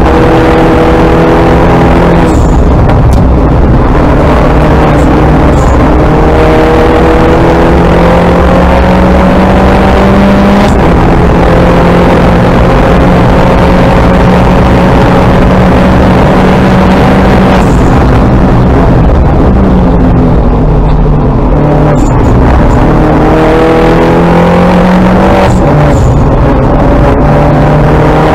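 In-car sound of a Mini John Cooper Works Coupe race car's turbocharged four-cylinder engine at racing pace, loud and steady. The revs climb through the gears with drops at each upshift, hold high for several seconds mid-way, fall under braking and downshifts, then build again near the end.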